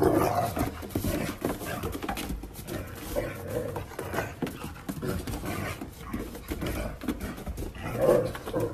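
Small dog panting and making small excited noises as it romps, with many quick scuffs and clicks of its paws on a snowy wooden deck.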